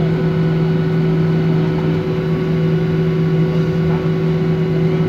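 Cabin noise of a Boeing 737-800 taxiing after landing, heard from a seat over the wing: the CFM56-7B engines at idle give a steady drone with a strong low hum.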